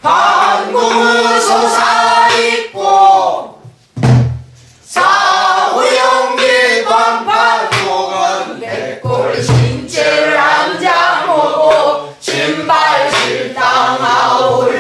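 A woman singing pansori in a bending, ornamented voice while keeping time on a buk barrel drum with a stick. Deep drum strokes fall about every five seconds, with sharp stick clicks between them, and there is a short break in the singing about four seconds in.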